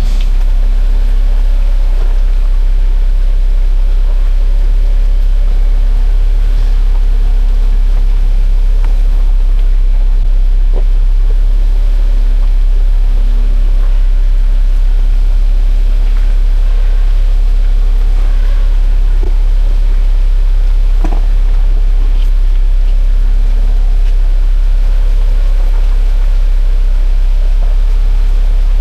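Off-road vehicle driving on a muddy trail: a loud, steady deep rumble with a faint wavering engine tone above it and a few sharp knocks.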